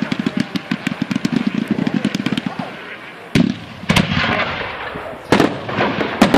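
Fireworks display: a rapid string of sharp launch pops, about ten a second, for the first few seconds. Then come several louder bangs, each followed by crackling and hiss.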